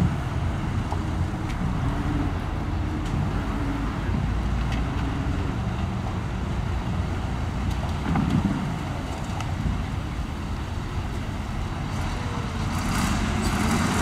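Komatsu bulldozer's diesel engine running steadily, with a few faint clicks or clanks.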